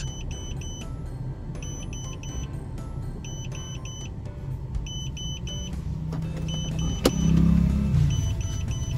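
Careud T601X-WI tire pressure monitor display sounding its alarm: sets of three short high beeps, repeating about every second and a half, because the front-left sensor has been removed and reads 0 PSI. A low rumble runs underneath, with a sharp click about seven seconds in.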